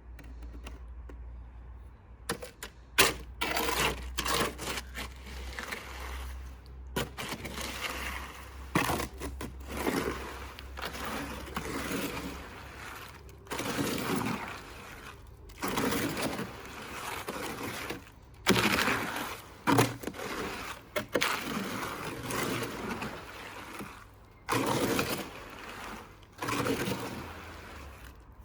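A trowel scraping and stirring a wet, sloppy cement mix in a bucket, in repeated irregular strokes.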